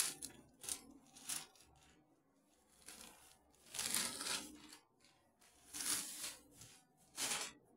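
Bagh block-printed cotton fabric rustling and swishing as a suit piece is unfolded and shaken out by hand, in several separate bursts a second or two apart.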